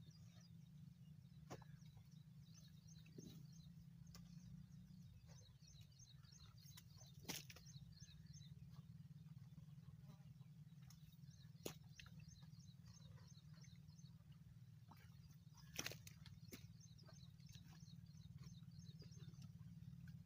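Near silence: faint birds chirping throughout over a low steady hum, with a few sharp clicks about 7, 12 and 16 seconds in.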